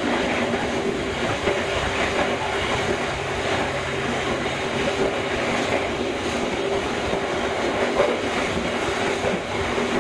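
Passenger train running along the track, heard from inside an economy-class carriage: a steady rumble of wheels on rails with a constant hum over it.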